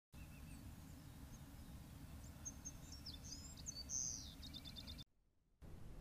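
Wild birds chirping and calling over a low, steady background rumble. The loudest call, a downward-gliding note, comes about four seconds in, followed by a quick run of short notes. The sound cuts off about five seconds in.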